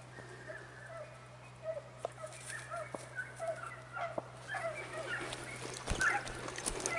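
Pack of hunting dogs baying on the trail of a wild boar: a run of short yelping calls, several a second, growing louder through the clip. Crackling and rustling clicks join in near the end.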